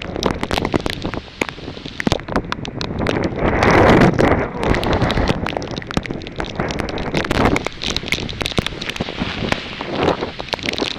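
Storm wind buffeting the microphone in gusts over heavy rain, with many sharp ticks of drops striking the camera. The strongest gust comes about four seconds in.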